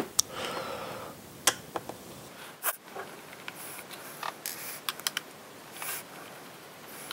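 Small screwdriver working the screws of a laptop's plastic back cover: irregular light clicks and short scrapes of metal on screw heads and plastic as the screws are turned out.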